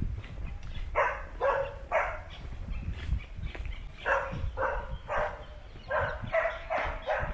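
A dog barking repeatedly in runs of three or four barks, about two barks a second, with a short pause between runs.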